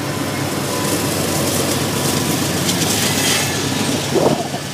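Intermodal freight train cars loaded with trailers and containers rolling past close by, a steady noise of steel wheels on rail.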